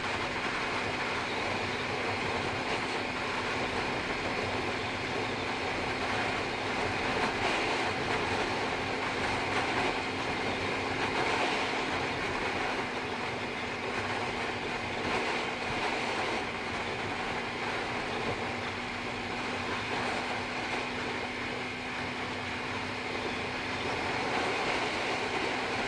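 Steady wind rush on an action camera's built-in microphone, over the even drone of a Bajaj Pulsar NS200's single-cylinder engine cruising at highway speed.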